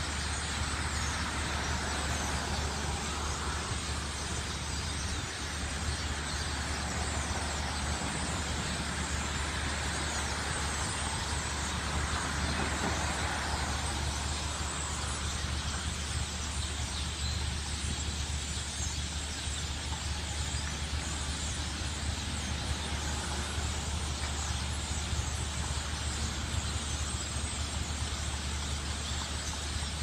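Steady road traffic noise: a continuous low rumble with hiss on top, no breaks or single events standing out.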